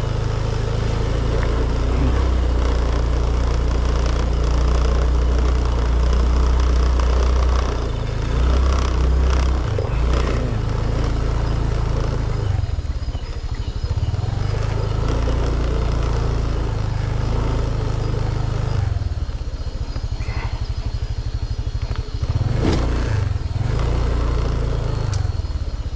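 Motorcycle engine running at low speed, easing off twice (around thirteen and twenty-two seconds in) and picking up again, with rattles and knocks from the bike riding over a rough road.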